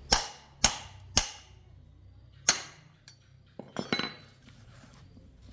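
Sharp metallic knocks of a hand tool striking metal: three strikes about half a second apart, a fourth after a pause, then a quick cluster of lighter knocks about four seconds in.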